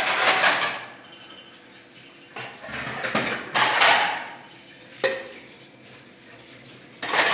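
Dishes clattering as plates are washed at a steel sink and set into a wire dish rack, in four bursts of clinking with short lulls between.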